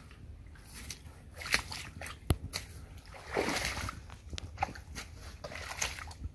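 Rubber boots splashing and sloshing through shallow swamp water and snow, with twigs and brush snapping, as a deer carcass is dragged through. A louder slosh comes a little over three seconds in.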